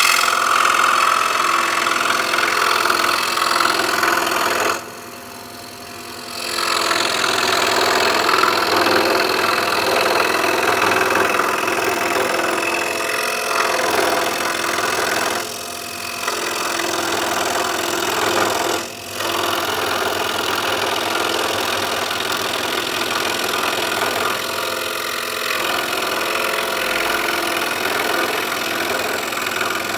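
Scroll saw running, its reciprocating blade cutting a pattern in a cedar board. The steady machine sound drops off for a moment about five seconds in, and dips twice more briefly later.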